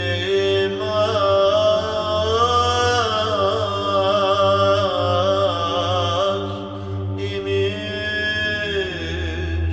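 Byzantine chant: a cantor sings a slow, ornamented melody that glides between held notes over a steady, unchanging low drone (the ison).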